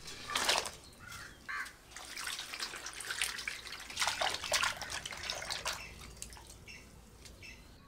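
Vegetables dropped into a clay basin of water with a splash, then hands swishing and rubbing them in the water: irregular splashing and sloshing, loudest about half a second in, dying down over the last two seconds.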